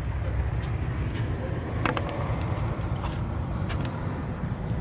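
Street traffic: a steady low rumble of passing road vehicles, with a few light clicks scattered through it.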